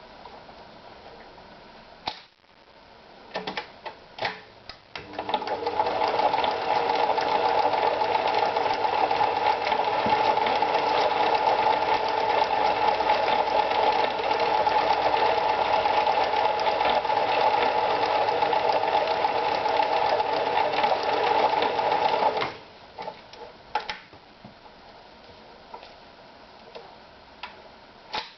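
Privileg Super Automatik TopStar 796 sewing machine starting after a few clicks, running steadily for about seventeen seconds, then stopping suddenly, with a few more clicks afterwards.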